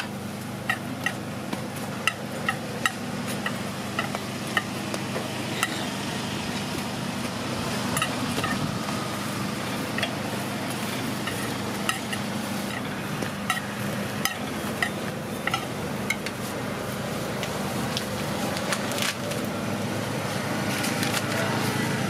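Hotteok frying in oil on a flat griddle, sizzling steadily, with sharp metal clicks and taps of the hotteok press and spatula against the griddle, about two a second at first and then scattered. A steady low hum runs underneath.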